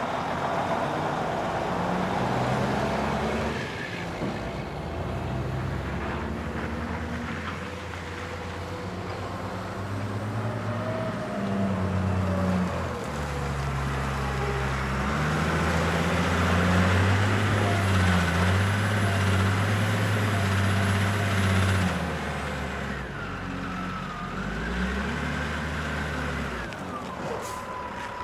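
Construction-site ambience: heavy vehicle engines running, their pitch stepping up and down as they rev. A thin high whine sounds for several seconds past the middle and cuts off suddenly, and wavering squeals come near the end.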